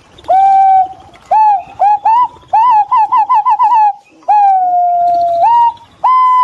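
Green pigeon whistling its fluting song: clear whistled notes that swoop up and level off, a quick run of about seven short notes in the middle, then one long drawn-out note that rises at its end.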